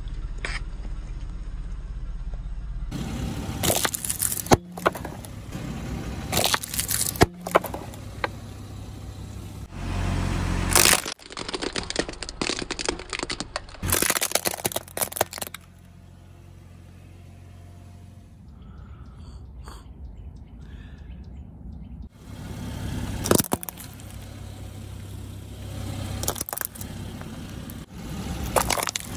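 A car tyre rolling slowly over small plastic toys and caps, crushing them with a string of sharp cracks and crunches of breaking plastic over the low hum of the idling car. The sound changes abruptly several times as one crushing clip cuts to the next, with a quieter stretch in the middle.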